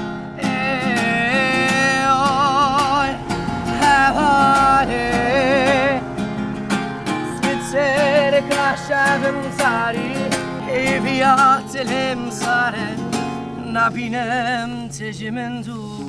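A man singing a song with a wavering, vibrato-laden voice while strumming an acoustic guitar.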